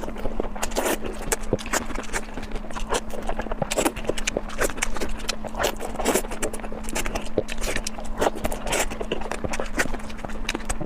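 Cooking utensils clanking and scraping irregularly, several knocks a second, over a steady hum.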